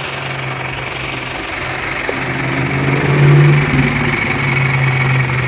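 1998 Toyota Camry's 2.2-litre four-cylinder engine running at idle, a steady hum that gets louder about three seconds in. The engine is running lean (code P0171) from a vacuum leak at a cracked rubber intake hose.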